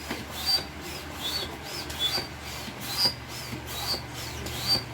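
Manual air pump squeaking with each stroke as it pushes air into an inflatable airbed, about two strokes a second in an even rhythm.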